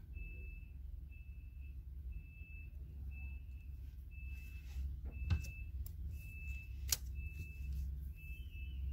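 A high electronic beep repeating evenly about once a second, each beep a little over half a second long, over a low steady hum. Two sharp clicks come about halfway through.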